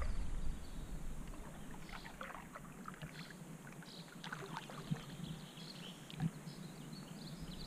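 Canoe paddle strokes in calm river water: soft, irregular splashes and drips as the blade dips and pulls, with a couple of light knocks about five and six seconds in.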